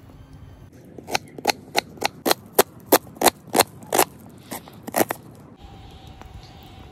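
Knife chopping an onion on a wooden cutting board: about a dozen sharp chops, roughly three a second.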